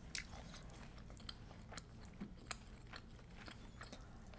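Faint eating sounds: soft chewing and scattered small clicks as a fork and spoon gather creamy penne pasta from a tray and a spoonful is taken into the mouth.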